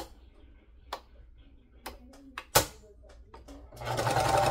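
A few sharp clicks and a louder knock as the sewing machine and fabric are handled, then the sewing machine starts stitching near the end, a steady motor run with a low hum.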